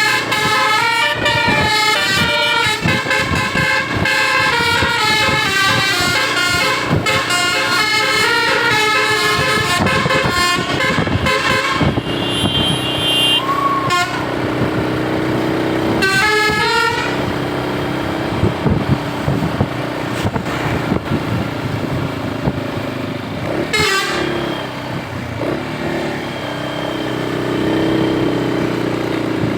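Tour bus 'telolet' basuri musical horn playing a fast melody of stepping tones for about twelve seconds, then shorter horn toots and pitch glides.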